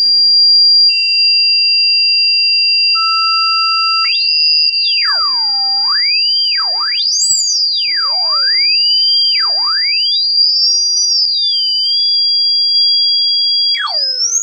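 Synthesized electronic tones from a rodent-repellent sound track: a steady high tone held throughout, with lower steady tones joining about one and three seconds in. From about four seconds in, a pure tone swoops up and down in pitch in wide glides, rising and falling several times.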